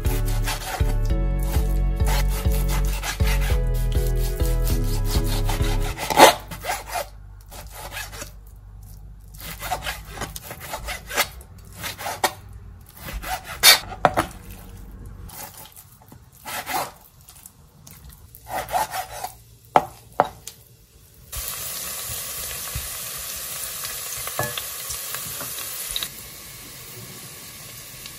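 A kitchen knife sawing through raw beef on a plastic cutting board: uneven strokes, with sharp knocks as the blade hits the board. For the first few seconds low background music plays under the cutting. Later a steady hiss takes over.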